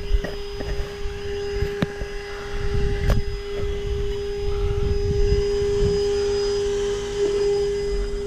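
A steady high-pitched electronic tone with overtones, over a low rumble of wind on the microphone, with two sharp clicks about two and three seconds in.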